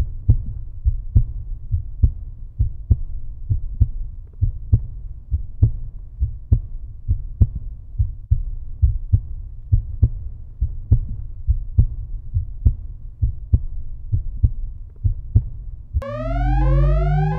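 A deep heartbeat-like thumping, about two beats a second. About sixteen seconds in it cuts off and gives way to electronic tones that slide upward over and over above a low drone.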